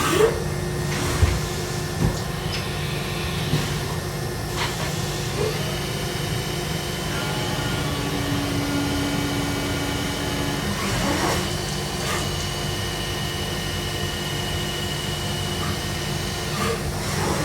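A Haas UMC-500 5-axis CNC machining center running, with a steady mechanical hum. Whining tones come and go, the highest starting about five seconds in and stopping near the end, and a few short clicks and knocks are heard, mostly in the first few seconds.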